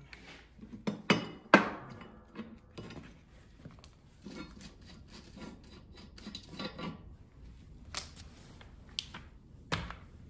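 Steel mower blades handled on a steel mower deck: irregular metallic clanks and scrapes, the loudest about a second and a half in.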